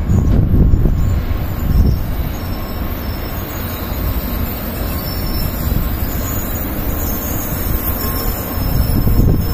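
Shinkansen bullet train rolling slowly into a station and braking to a stop, a steady low rumble.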